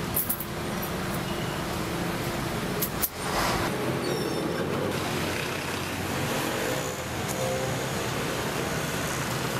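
Street traffic noise: a steady hum of vehicles and engines, with a brief sharp click about three seconds in.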